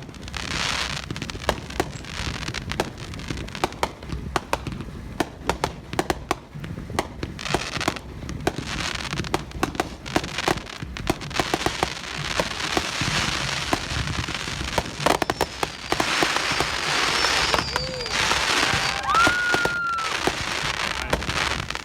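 Brothers Finale Set #5, a set of large and XL aerial cakes firing together: a rapid, continuous run of launch thumps and shell bursts with crackle between them.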